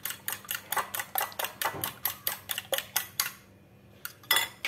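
Metal fork whisking eggs in a ceramic bowl, clinking against the bowl at about six strokes a second, stopping about three seconds in. Two sharper knocks follow near the end.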